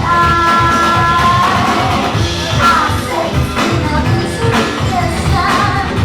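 Loud dance music with a steady beat and a singing voice. A long note is held for about the first second and a half before the melody moves on.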